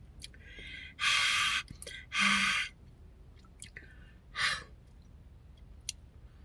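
A woman breathing hard through her mouth in a few short, loud breaths, two strong ones in the first three seconds and a weaker one past four seconds, as she tries to cool a tongue burning from hot sauce.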